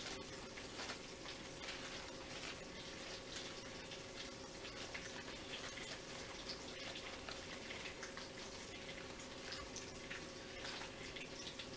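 Bacon sizzling in a frying pan: a faint, steady hiss with many small irregular pops and crackles, over a steady low hum.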